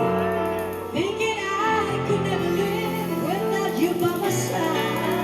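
Music with a female voice singing over sustained chords and a bass line; the voice enters about a second in.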